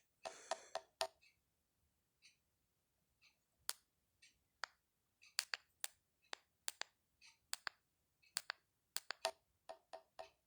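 A string of short, sharp clicks and ticks at irregular intervals, some with a brief pitched ring, thickest in the second half.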